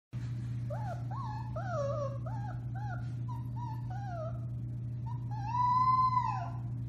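Four-week-old Alaskan Malamute puppy howling: a string of short rising-and-falling yips, then one longer howl that climbs, holds and drops away, the loudest call. A steady low hum runs beneath.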